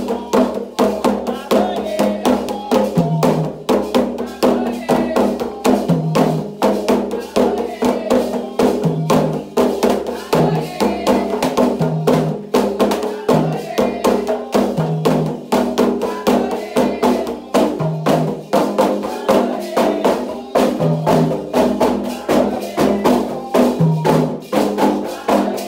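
Candomblé ritual music: atabaque hand drums beaten in a fast, steady rhythm with a struck agogô-type bell, under voices singing.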